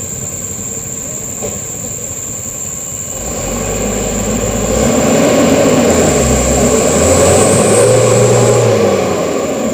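Mitsubishi Canter truck's diesel engine working under load on a muddy track, its drone building up a few seconds in and staying loud before easing off near the end.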